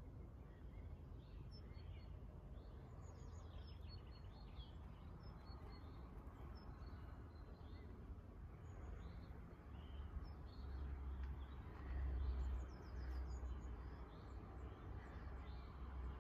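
Faint outdoor ambience: scattered birds chirping, over a low rumble that swells for a few seconds about ten seconds in.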